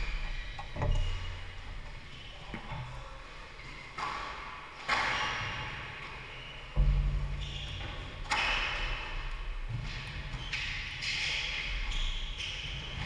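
A handful of sudden thumps and knocks at irregular intervals, echoing in a large hall, the loudest about seven seconds in.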